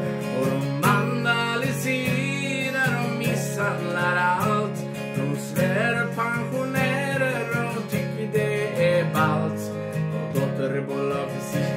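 Acoustic guitar strummed in a steady rhythm, with a man singing over it in phrases that come and go.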